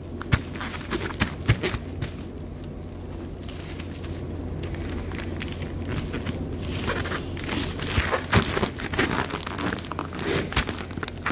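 Plastic postage bags crinkling and rustling as books are wrapped in them by hand, with sharp crackles and taps that get busier about seven seconds in. A steady low hum runs underneath.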